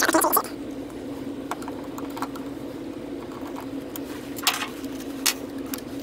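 Light clicks and clinks of a steering-column ignition lock housing and screwdriver being handled and set down, a cluster right at the start then a few single clicks, over a steady low hum.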